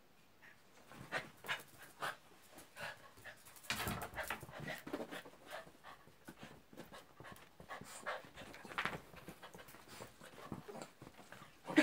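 Dogs panting in short, quick breaths, with a louder burst of noise about four seconds in.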